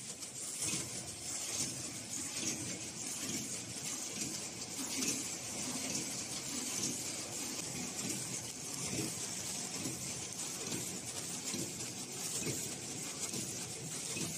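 Snack packaging machine running: a steady hiss with irregular soft knocks and rustles as filled plastic chip bags come off the conveyor and pile up.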